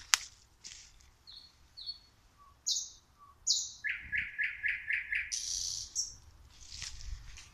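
Nightingale (Luscinia) singing at night from close overhead: separate short phrases of high whistles and harsh notes with pauses between them, including a fast run of about six repeated notes near the middle. A sharp click right at the start.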